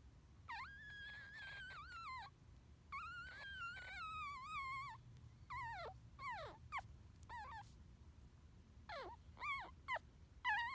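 Newborn pug puppy squeaking while nursing from its mother: two long, high, wavering squeaks, then several short squeaks that drop in pitch. The squeaking is normal and a sign that he is enjoying his feed.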